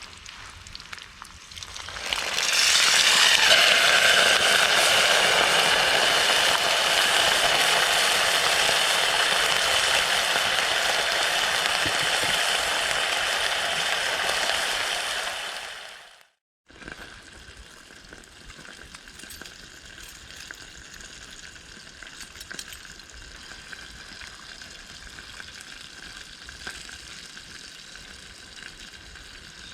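Food sizzling in a hot frying pan. The sizzle starts suddenly and loud about two seconds in and holds steady, then dies away. After a short break, quieter, steady sizzling carries on.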